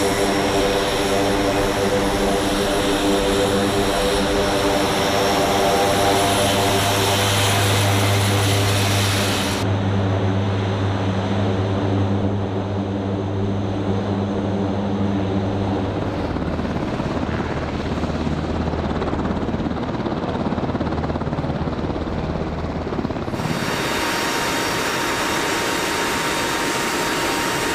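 MC-130J's four turboprop engines and propellers running as the aircraft taxis: a steady drone with a strong low hum and a clear pitch. About two-thirds of the way through it gives way to a wide, even rushing noise of engines and wind at the open cargo ramp in flight.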